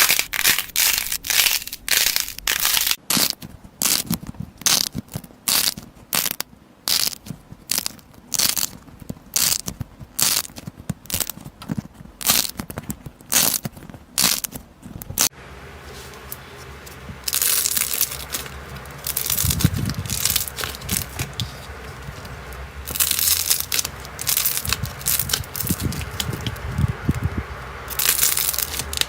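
Slime being pressed and squeezed by hand, giving quick runs of crisp crackling pops several times a second. About halfway through the sound changes suddenly to longer, hissing, crinkly squishes with low thuds underneath.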